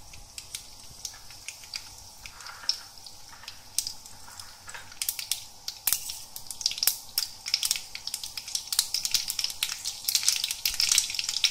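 Mustard seeds frying in hot oil in a kadai: a steady sizzle with sharp pops and crackles that grow louder and more frequent from about halfway through as the seeds start to splutter, the sign that the oil is hot enough for tempering.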